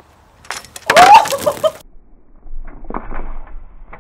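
Coke and Mentos geyser erupting: a sudden, loud fizzing whoosh of foaming soda spraying out of the bottle about half a second in, lasting a little over a second, then quieter broken sounds.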